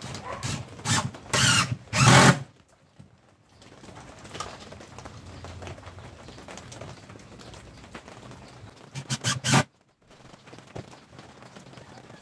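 Cordless drill driving screws into a plywood speaker cabinet in short trigger bursts: three in the first couple of seconds, then a quick run of shorter ones about nine seconds in.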